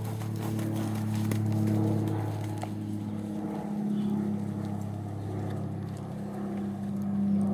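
A steady low engine-like hum that swells and fades every two to three seconds.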